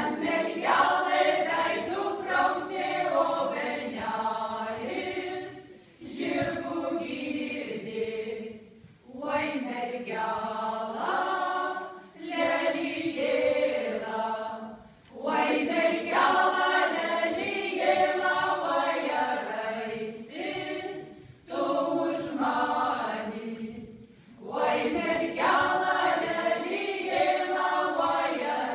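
Women's folk ensemble singing a cappella together, in phrases of three to six seconds with short breath pauses between them.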